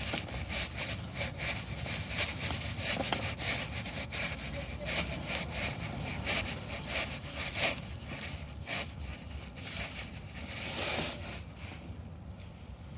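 Irregular rubbing and scraping as a gloved hand turns the plastic cartridge oil filter housing cap back onto its threads to hand-tighten it.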